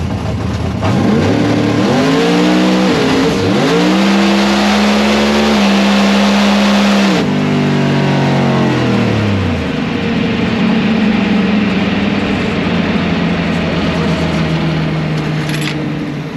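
Supercharged drag race car's engine under hard acceleration on a pass. The pitch climbs with a brief dip about three seconds in, falls away about seven seconds in, then carries on at a lower, steadier note that fades near the end. This is the pass on which its supercharger broke.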